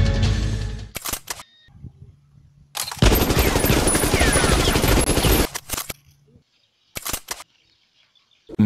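Machine-gun fire sound effect: a short burst about a second in, a sustained volley of about two and a half seconds in the middle, then two more short bursts. Background music cuts off just before the first burst.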